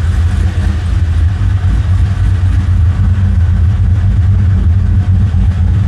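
Holden VT SS Commodore's freshly rebuilt LS1 5.7-litre V8 running at a steady idle, heard toward the rear of the car.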